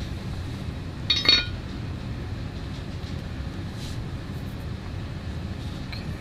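A short metallic clink about a second in, with a brief ring, as a metal hand tool is set down or knocked on the workbench, over a steady low background rumble.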